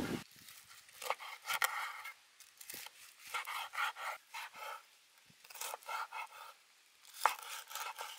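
Chef's knife cutting through crisp deep-fried pork knuckle skin, crunching and crackling in four bursts, with the blade knocking on the wooden cutting board.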